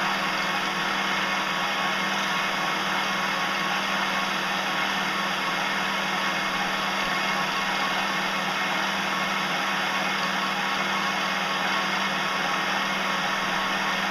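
Small metal lathe running at a steady speed while a boring bar cuts the inside of a spinning plastic bearing blank: an even motor hum with a steady hiss from the cut.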